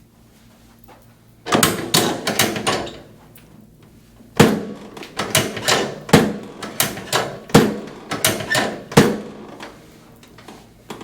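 Chiropractic drop table's lumbar section snapping down under thrusts during lumbar drop adjustments. A quick cluster of sharp knocks comes first, then about seven heavy knocks roughly every 0.7 s.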